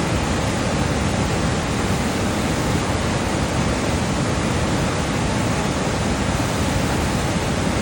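Upper Rogue River whitewater rushing through a channel of large boulders: a steady, dense rushing of water that does not change.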